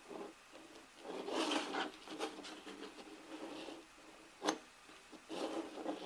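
Bar magnets being slid and scraped across a tabletop by hand, in several drawn-out rubs, with one sharp click about four and a half seconds in.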